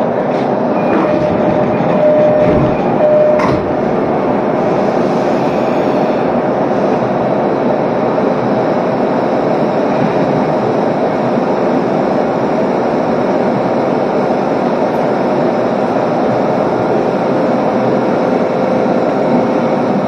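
Electric commuter train standing at a station, heard from inside the car: the steady noise of its onboard equipment, such as ventilation and auxiliary machinery, with a faint steady whine. Two short tones sound about two and three seconds in.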